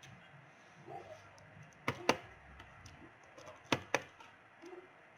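Small hard clicks in two close pairs, about two seconds apart, from a screwdriver and screws being worked on a laptop's plastic bottom panel.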